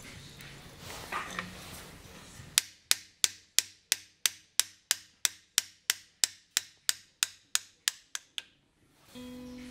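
Hand hammer striking metal on a Ford Model Y sidevalve engine block in an even rhythm of about three blows a second, each with a brief ring. There are about nineteen blows, which come quicker and fainter near the end, as the valves are being worked out of the block.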